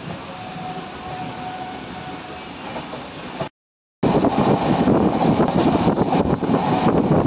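Running noise of a passenger train heard from on board: a steady rumble that cuts out for half a second a little past the middle. It comes back much louder, with wheel-and-rail clatter and irregular knocks.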